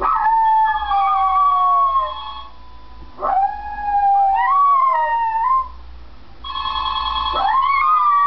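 A Maltese dog howling in long drawn-out howls, each swooping up and then sliding down in pitch, three or four in a row. About two-thirds of the way through, a steady electronic ringing tone sounds for about a second.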